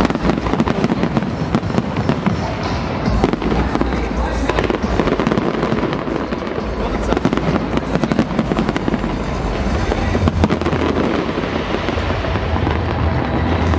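Large fireworks display: a dense, unbroken barrage of bangs and crackling from aerial shells bursting and comets firing.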